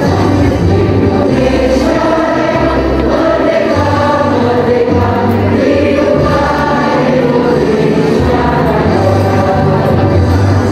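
A crowd of women singing a song together in chorus, with musical accompaniment.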